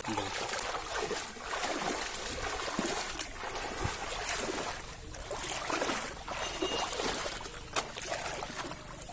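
Water splashing and sloshing in irregular strokes, several a second.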